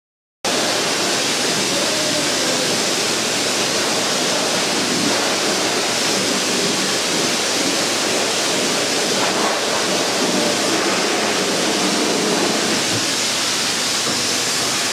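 Self-serve dog-wash blow dryer blowing steadily through its wide hose.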